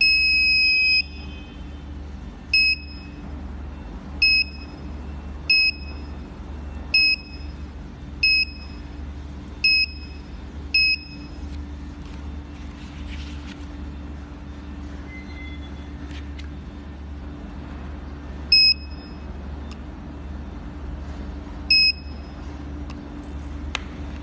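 Electronic beeps from a portable battery-powered mini spot welder: one long beep of about a second, then a run of seven short, high beeps at roughly one-second intervals, and two more further on, over a steady low hum.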